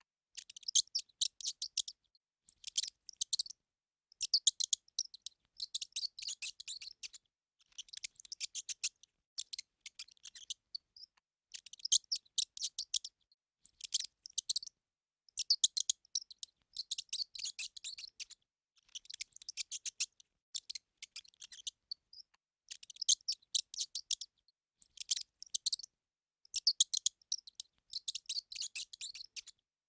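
A hamster making quick bursts of rapid, sharp clicks, each about a second long, with short pauses between them, repeating over and over.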